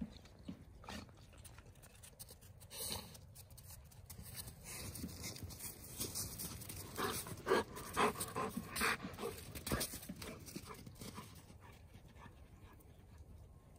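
A golden retriever panting and sniffing with its nose in the snow: quick, irregular puffs of breath, busiest in the middle stretch and thinning out near the end.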